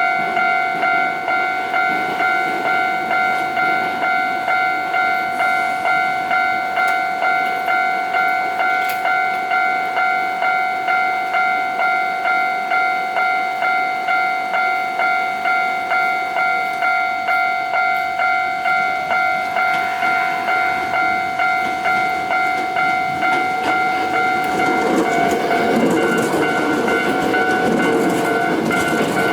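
Level crossing warning bell ringing in an even repeating rhythm, about one and a half strikes a second, signalling that a train is coming. From about 20 s a train's rumble and wheel clatter builds up, growing loud from about 25 s as it passes over the crossing.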